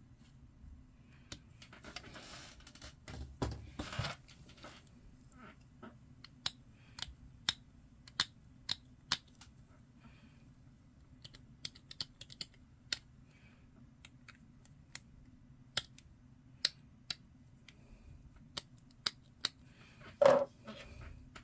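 Plastic miniature parts being snipped off a sprue and trimmed: a string of short sharp clicks at irregular intervals over a steady low hum, with rustling of the plastic sprue being handled about two to four seconds in and a louder knock near the end as something is set down on the desk.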